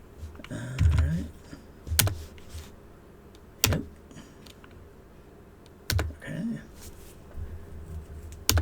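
Computer keyboard keys pressed one at a time: four sharp single clicks spaced a second and a half to two seconds apart, as he steps through installer menus.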